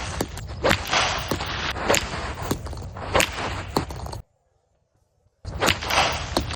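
Footsteps crunching on icy snow at a steady walking pace, stopping dead for about a second a little past the middle and then going on.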